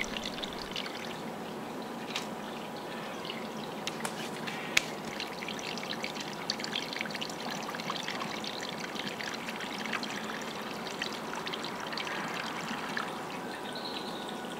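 Spring water trickling and splashing steadily, with many small drip-like ticks and one sharp click about five seconds in.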